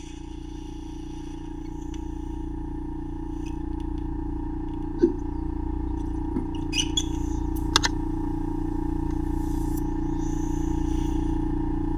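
Ear microsuction machine running with a steady hum, with a few short, sharp sounds between about five and eight seconds in.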